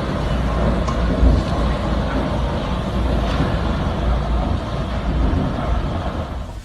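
Storm wind rushing steadily, with heavy gusts buffeting the microphone into a deep rumble.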